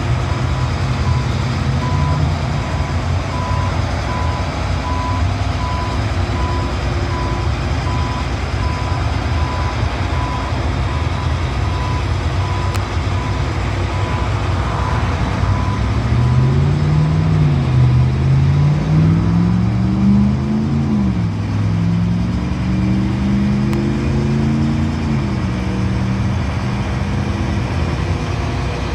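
John Deere 9870 STS combine's diesel engine running while the machine moves, its backup alarm beeping steadily for roughly the first ten seconds. Past the middle, the engine's pitch rises and falls several times as the combine manoeuvres.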